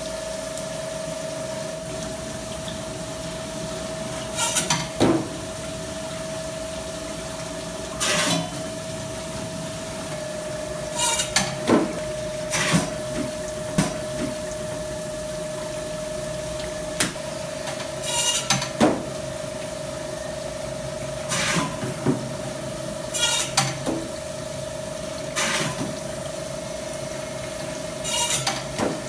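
Fish filleting machine running with a steady hum and water running through it. Short clattering noises come every two to four seconds as each sea bass is fed through the cutters and the fillets drop out down the metal chute.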